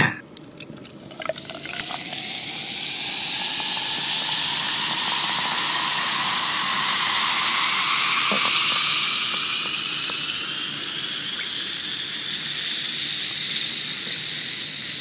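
Carbonated blue Pepsi poured from a plastic bottle into a glass mason jar, close-miked at the jar's mouth. There is a steady fizzing hiss, and the pitch of the pour rises slowly as the jar fills.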